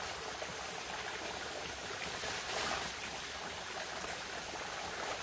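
Steady, even hiss of outdoor background ambience, with no distinct sound standing out.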